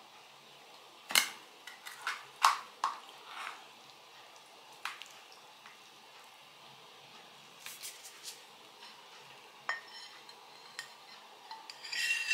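Metal pie server scraping and clicking against a metal tart tin as a slice of mushroom pie is cut and lifted out, in scattered sharp strokes. Near the end a quick run of ringing clinks of metal on a ceramic plate.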